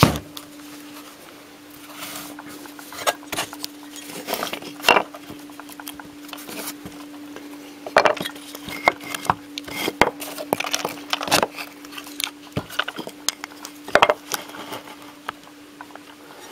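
Irregular knocks and clatter of wooden blocks and a heavy microwave oven transformer being handled and set down on a wooden workbench, over a steady faint hum.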